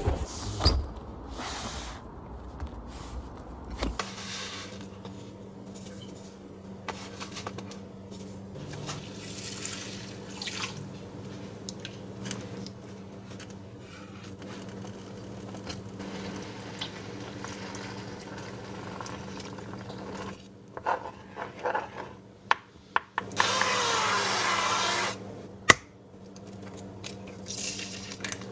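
Kitchen sounds: water running from a tap and scattered clicks and clinks of utensils, over a steady low hum, with a louder spell of running water near the end.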